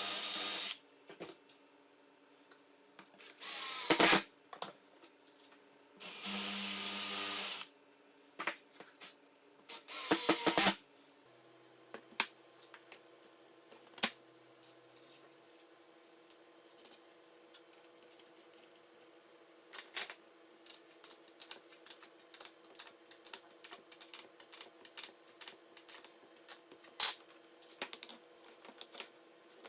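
Electric drill running in several short bursts, one of them held for about a second and a half, then a faint steady hum with scattered light clicks from handling parts.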